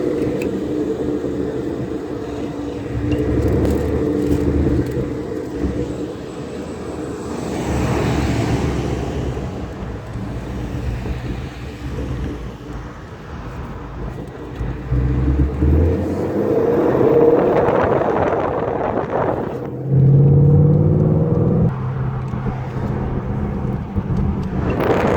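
Ford Mustang GT's 5.0-litre V8 engine running while the car is driven, its revs rising and falling several times as it pulls through the gears.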